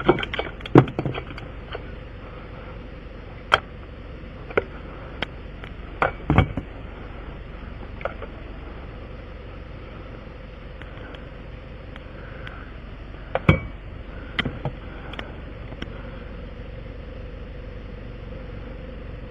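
Scattered sharp clicks and knocks of hand tools, pliers among them, working on a tire plug repair, over a steady vehicle engine hum.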